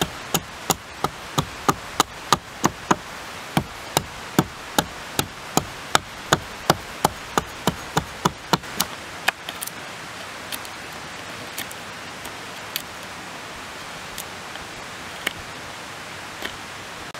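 Hatchet chopping into a green wooden pole, sharp strikes at about three a second for some nine seconds, then a few lighter scattered taps.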